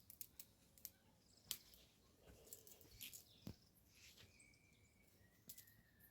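Near silence, broken by a few faint scattered ticks and clicks, with a faint thin whistle-like tone slowly falling in pitch in the last two seconds.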